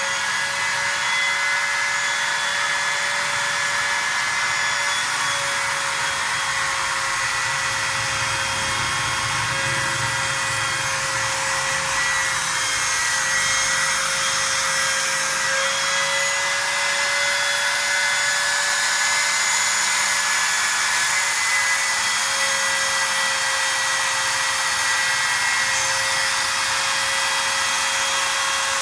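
Automatic alu letter-cutting machine running steadily: a constant motor whine with a dense hiss of cutting over it.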